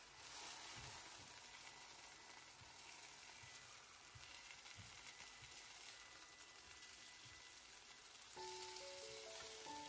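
Chicken breasts faintly sizzling as they fry in oil in a nonstick pan, a silicone spatula moving them. Music with steady notes comes in about eight seconds in.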